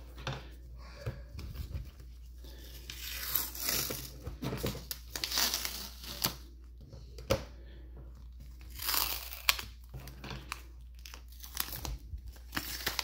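Green painter's tape being peeled off hard plastic card holders in several separate pulls, with crinkling as the loose strips are handled.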